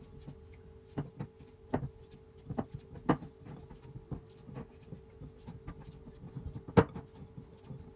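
A hand kneading a stiff halva dough of tahini, cocoa, powdered milk and icing sugar in a glass bowl: irregular soft knocks and clicks as the hand and dough strike the glass, the loudest near the end, over a faint steady hum.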